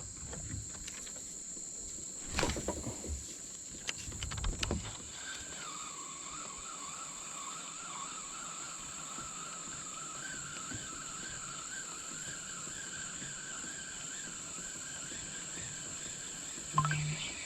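Insects keep up a steady high-pitched drone, with two brief knocks in the first five seconds.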